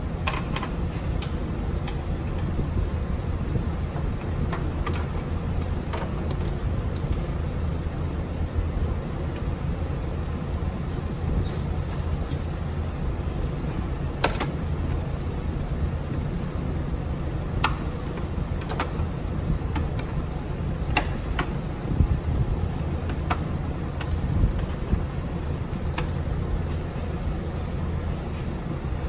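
Steady low background hum with scattered light clicks and taps from hands routing a clutch line among the hoses and wiring of a car's engine bay.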